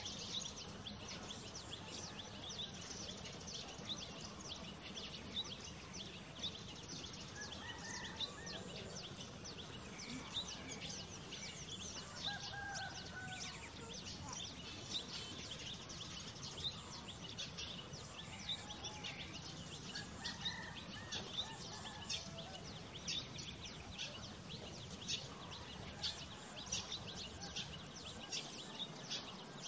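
Outdoor ambience: a steady hiss full of quick, faint high ticks, with a few scattered bird chirps.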